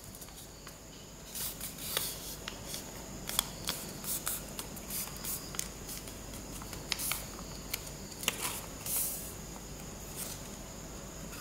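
A sheet of paper being folded back and forth into accordion pleats, rustling and crackling softly as the creases are pressed. There are scattered short clicks and a few brief rustles.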